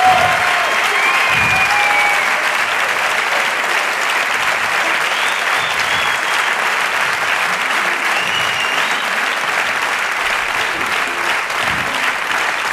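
Audience applauding steadily at the close of a stage musical number.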